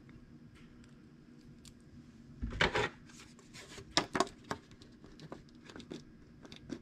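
Hands handling a small plastic HO slot car chassis and a plastic slot car track section: faint clicks, then a clatter about two and a half seconds in as the track piece is set down, followed by scattered sharp clicks and light scrapes as the chassis on its freshly refitted stock tires is pushed along the rails to feel its grip.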